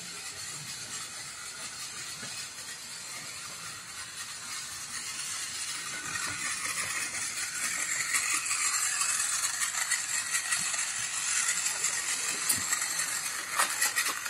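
Battery-powered toy tram running on plastic toy-train track: its small motor whirs and its wheels rattle over the track joints. The sound grows louder from about halfway, and a few knocks come near the end as a hand takes hold of the train.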